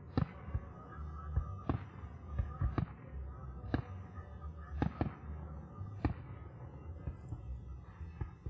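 Fireworks display: a string of aerial shell bursts, about a dozen sharp bangs over the first six seconds, each with a short echoing tail, fewer after that. A low steady rumble runs under them.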